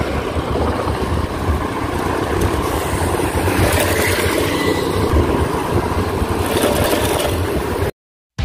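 Wind and road noise on a bicycle-mounted phone while riding, the bike rumbling and shaking over rough painted road lines. The sound cuts off abruptly near the end.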